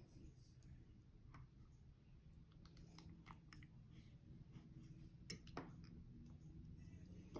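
Near silence with a few faint clicks and small mouth sounds of a toddler eating with a fork, the clearest clicks about three seconds in and again a little past five seconds.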